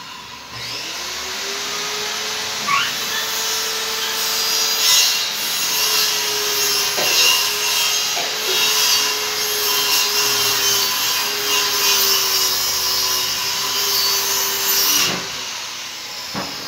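Electric power tool running, loud, for about fourteen seconds: the motor spins up with a rising whine, holds a steady whine under a rough rasping noise as it works wood, and winds down near the end. It is carpentry on kitchen cabinets under construction.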